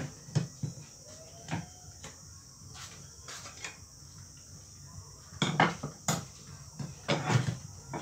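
Screwdriver and metal parts of a ceiling fan clinking and knocking against each other in scattered strokes, busiest in the second half.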